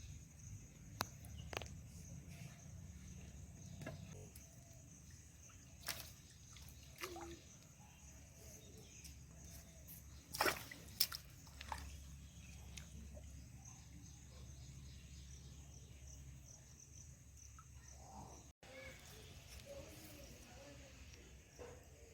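Shallow flood water sloshing and splashing, with scattered sharp splashes and clicks over a low, steady rumble; the loudest come as a pair about halfway through.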